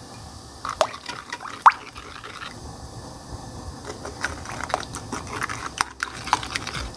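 A spoon stirring a thin soy-sauce seasoning in a glass bowl: liquid swishing and splashing, with irregular sharp taps of the spoon on the glass, the loudest a single ringing clink about a second and a half in.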